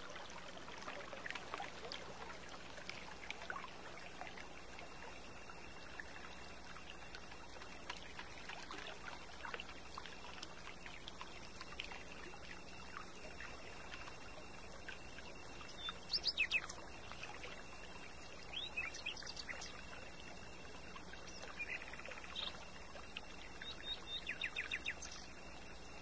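Mountain stream running with a steady, faint rush of water, with small birds chirping now and then, loudest in a quick burst of calls about two-thirds of the way through and in scattered chirps near the end.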